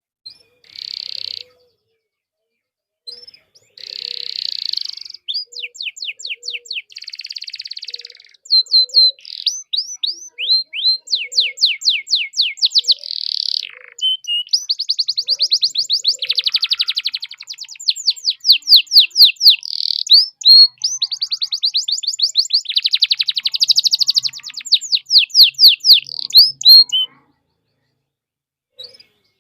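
Domestic canary singing a long, loud song of fast trills of repeated sweeping notes, broken by short pauses. The song stops a couple of seconds before the end.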